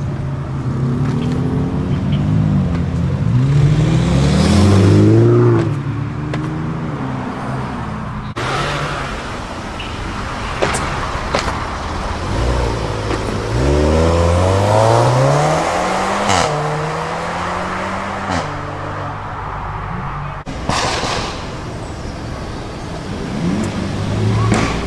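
Performance cars accelerating hard away one after another. First a BMW M3 saloon and later a VW Golf: each engine climbs steeply in pitch and then drops at an upshift. Near the end a Seat Leon Cupra pulls away more gently. Abrupt cuts fall between the cars.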